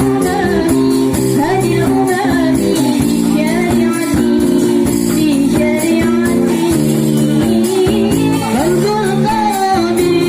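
Sholawat, Islamic devotional song: a sung melody over instrumental accompaniment with a steady percussion beat.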